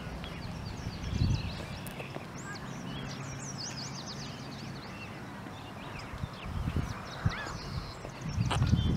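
Several songbirds chirping in quick, rising and falling calls, with low rumbling bursts about a second in and again near the end.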